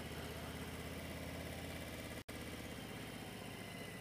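Harley-Davidson V-twin motorcycle engine running steadily at low revs, near idle, as the bike rolls slowly up behind a stopped school bus. The sound cuts out for an instant a little past halfway.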